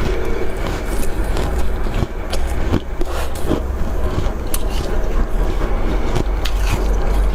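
Frost crunching in irregular sharp crackles over a steady low rumble.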